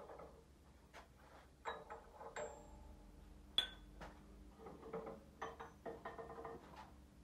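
Steel parts clinking and knocking on a hydraulic shop press as a steering knuckle with its freshly pressed-in wheel bearing and hub is handled. A few knocks leave short metallic rings, the loudest about three and a half seconds in.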